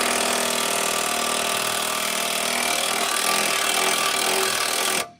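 A hand-held power tool running steadily at full speed, then cutting off abruptly near the end.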